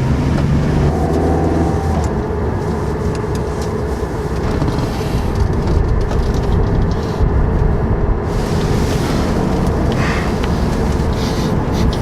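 Van engine running and road noise as the van drives off: a steady low rumble, with the engine's tone standing out in the first second or so.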